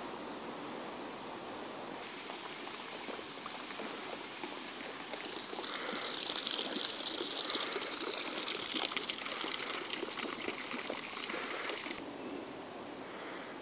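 Water trickling and running in a canal. It swells about two seconds in, is loudest from about six to twelve seconds, then drops back.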